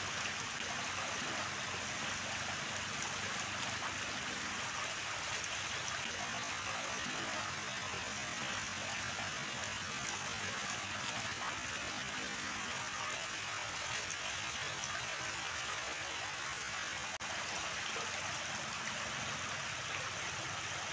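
Steady rushing of shallow water pouring down a sloped concrete spillway into a pool.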